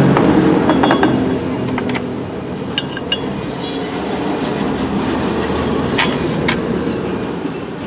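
Steady low background noise with a few sharp light clicks, two a little before halfway and two more near the end, as a finned aluminium heatsink is handled on a table.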